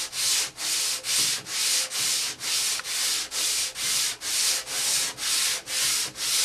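Fine-grit sandpaper rubbed by hand over urethane-coated wood veneer in long back-and-forth strokes, about two a second: a light scuff-sanding between coats of urethane.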